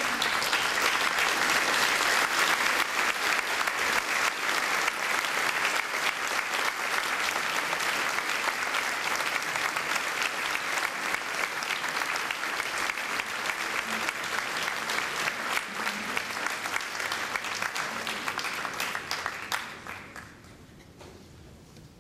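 An audience clapping together in a large hall, loud at first and slowly tapering off until it dies away about twenty seconds in.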